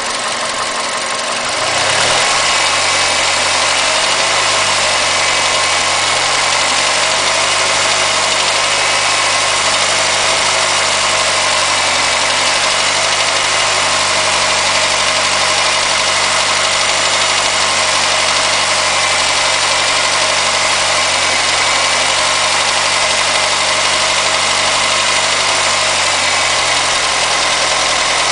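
Mazda 6 MPS turbocharged 2.3-litre direct-injection four-cylinder engine running steadily at low revs, with the knocking ('nageln') that the owner reports at 1500 rpm. It gets louder about two seconds in, then holds steady.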